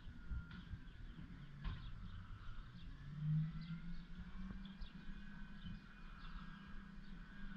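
Small birds chirping in short scattered calls over a faint, steady low engine hum from a distant garbage truck.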